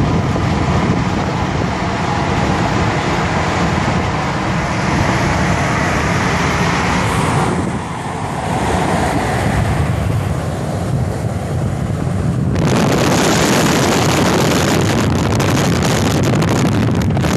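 Steady road and wind noise of a car driving on a highway, heard from inside the car. It dips briefly about eight seconds in, and from about twelve seconds in it turns suddenly louder and hissier, a strong rush of wind.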